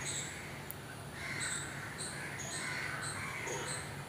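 Birds calling over and over, short rough calls about two a second, with a low steady hum underneath.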